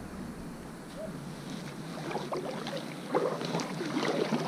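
Kayak paddle dipping into calm water, with small irregular splashes and drips that grow louder about three seconds in.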